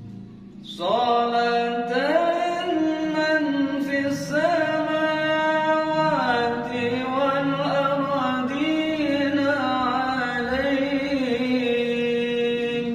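A man chanting an Arabic sholawat (blessing on the Prophet Muhammad) in a slow, melismatic melody, one long phrase beginning about a second in.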